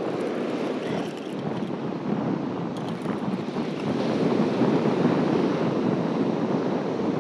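Strong wind buffeting the microphone, over steady surf breaking on the beach.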